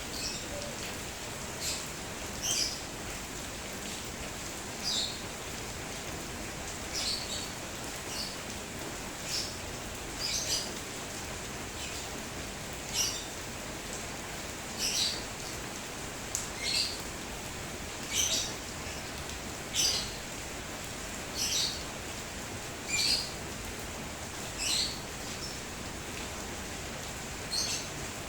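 Steady rain falling, with a bird giving short, high chirps over it, repeated every second or two.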